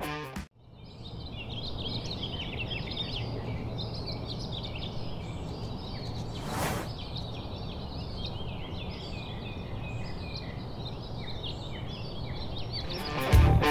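Many small songbirds chirping and singing together over a steady rush of flowing river water, with one brief swish about seven seconds in.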